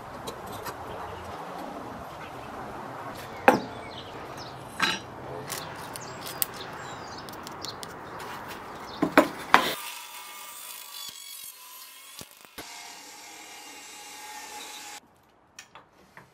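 Wood and steel tools being handled on a workbench: rubbing and scraping of wood, with several sharp knocks.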